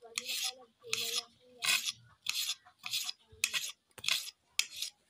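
Kitchen knife slicing tomato on a plate: a steady run of short rasping strokes, nearly two a second, as the blade saws through the tomato and scrapes the plate.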